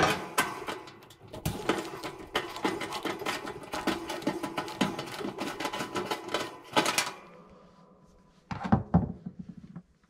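Screwdriver backing a quarter-inch sheet metal screw out of a clothes dryer's sheet-metal housing: steady metallic grinding and rattling for about seven seconds that stops suddenly. A few sharp metal knocks follow near the end as the freed thermal limit switch is handled.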